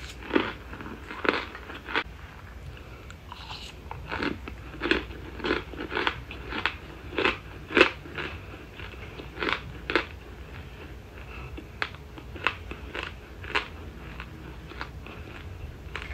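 A mouth chewing chunks of cornstarch: a series of sharp, crisp crunches about half a second apart, in clusters with short pauses, growing sparser after about ten seconds.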